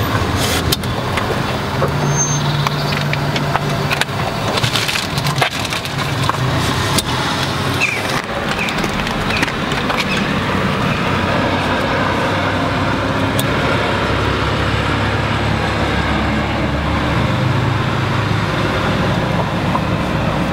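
Steady traffic and street noise with low rumbles that swell and fade, and a few sharp clicks as patch-cable plugs are pushed into the line card's ports and latch.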